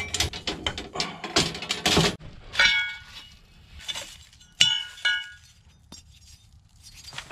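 Metal clattering and rattling as a snatch block is lifted off its hook among coils of copper tubing. This is followed by three sharp, ringing metallic clinks as short rusty steel offcuts are picked out of a pile.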